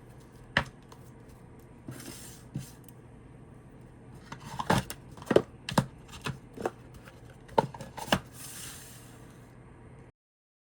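Glossy tarot cards being handled and flipped: scattered sharp card snaps and slides, most of them clustered about halfway through. The sound cuts off suddenly near the end.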